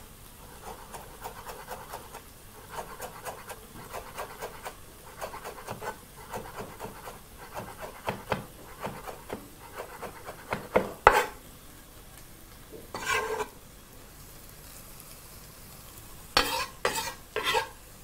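Chef's knife chopping parsley on a wooden cutting board: a quick run of light taps, about three or four a second, then a few louder knocks and a short scrape about halfway through. Three sharp knocks come near the end.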